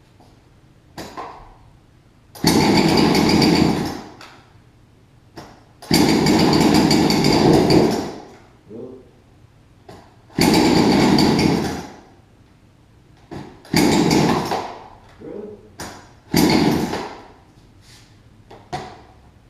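Chainsaw being pull-started on its recoil starter: five loud rasping pulls of a second or two each, about every three to four seconds, with the engine not staying running.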